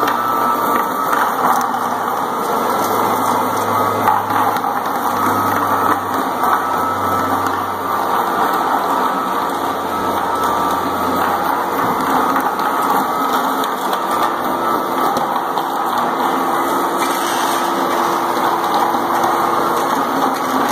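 Single-disc rotary floor machine running steadily, its pad polishing a stone tile floor.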